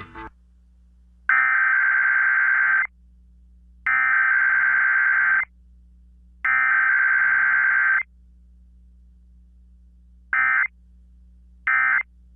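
Emergency Alert System SAME data tones: the buzzy digital header sent three times as bursts of about a second and a half, followed by two short end-of-message bursts near the end. They mark the start and close of an EAS test activation.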